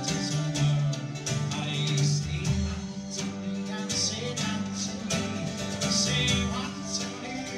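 A live Scottish folk band playing a fast instrumental tune on bagpipes, fiddle, bouzouki and drum kit. The pipes hold a steady low drone, and a regular drum beat runs under the strummed bouzouki and the melody.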